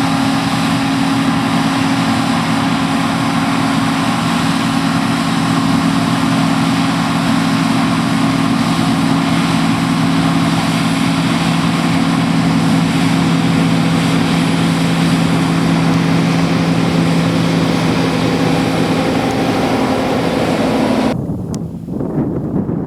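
Diesel engine of a John Deere T560 combine harvester running steadily under load. About 21 seconds in it cuts off abruptly to wind on the microphone.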